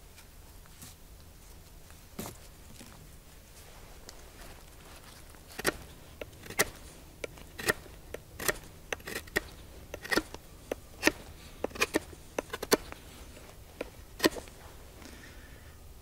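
Knife whittling a point on a wooden stake: a run of short, sharp shaving strokes at an uneven pace, starting about five seconds in and stopping shortly before the end.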